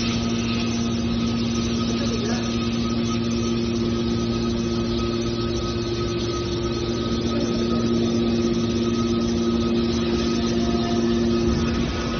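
Hydraulic metal press baler running, its motor and hydraulic pump giving a steady, even hum.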